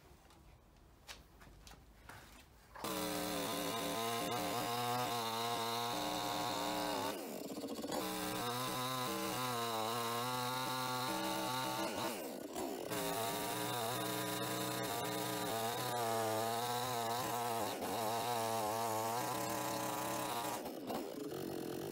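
Chainsaw cutting through a log on a sawbuck, its engine pitch wavering up and down under load, with two brief dips as it eases off. Before it starts there are a few light knocks.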